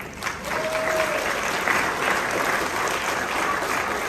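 Crowd of guests applauding, breaking out just after the start and going on steadily, with one short held cheer about half a second in.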